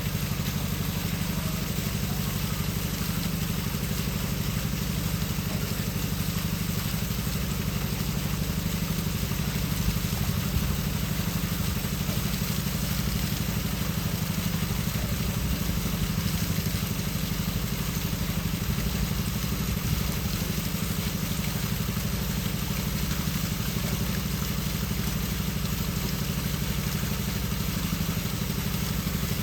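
Water flowing and splashing steadily, over a low, even, engine-like drone that runs without a break.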